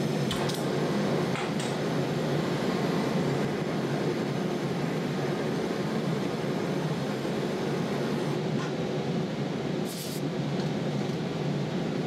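Gas torch flame running steadily while annealing a thin fine-silver cup, with a few light clicks near the start and a brief high hiss about ten seconds in.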